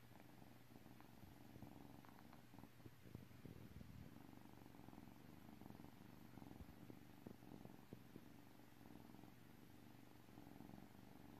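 Two young kittens purring together, faint and steady.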